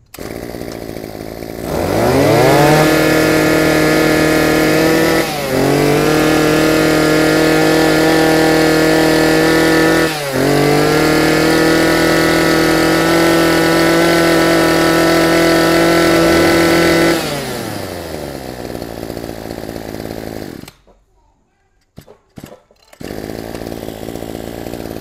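Maruyama KC2600 26cc two-stroke brush-cutter engine idling, then revved up to full throttle and held there with two brief dips as the throttle is let off and squeezed again. About seventeen seconds in it drops back to idle and cuts out a few seconds later, followed by a few clicks, then a low engine sound again near the end.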